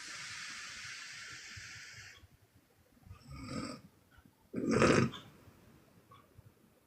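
A sleeping woman's exhale snoring. A long airy breath runs for about two seconds, a softer breath follows, and about five seconds in comes a short, loud, low snoring puff.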